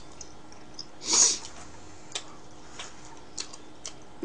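Eating sounds from a person chewing: a short breathy huff, like a sniff or exhale, about a second in, then a few faint mouth clicks.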